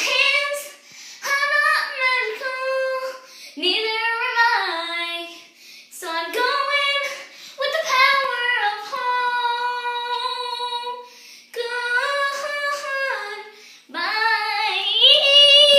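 A young girl singing unaccompanied in high, drawn-out phrases with sliding notes and short breaks between them, holding one long note near the middle.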